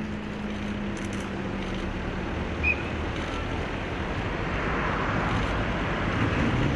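Steady outdoor road and traffic noise with a low engine hum that fades out about two seconds in, a short high beep a little before halfway, and an engine beginning to rev up near the end.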